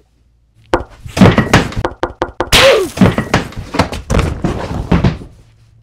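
A loud jumble of wooden thuds, knocks and clattering crashes, like lumber being thrown, striking and tumbling, with the biggest crash near the middle. A steady low hum runs underneath.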